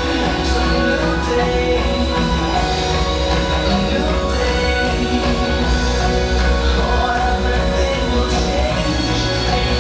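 Backing music for a stage performance: a song with band instruments and singing, with a steady beat.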